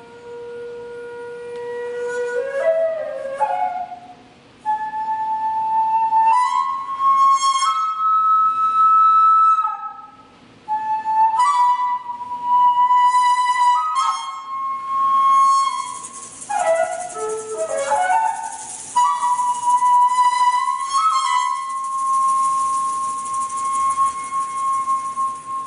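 Daegeum, the large Korean bamboo transverse flute, playing a slow melody of long held notes that bend and slide between pitches, broken by quick ornamental runs and short breath pauses.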